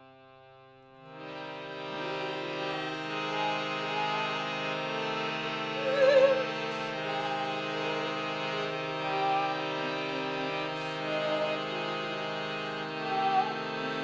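Slow music on a harmonium: held reedy chords that swell in about a second in, with a wavering melody above them and its loudest swell about halfway through.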